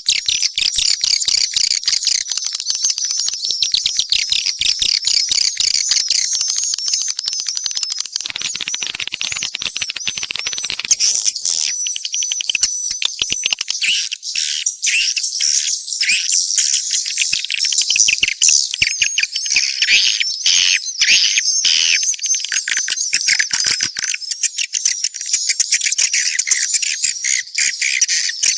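Dense, unbroken high-pitched twittering and chirping of many swiftlets, a mixed swiftlet call recording of the kind played as a lure for edible-nest swiftlets.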